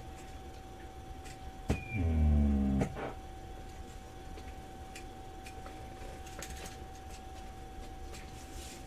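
Amateur radio receiver on a quiet two-metre AM frequency, giving a steady whistle over hiss. About two seconds in, a click opens a low buzzing hum lasting about a second, which another click cuts off.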